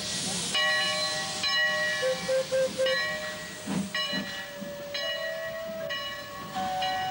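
Steam locomotive blowing off steam, a loud hiss at the start and further hissing, under a melody of held and short piped notes.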